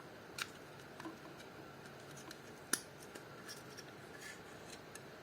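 A few faint, sharp plastic clicks and taps as the magnet-held pump cover of a Deepcool LT720 AIO cooler is handled and pulled off. The sharpest click comes a little before the middle.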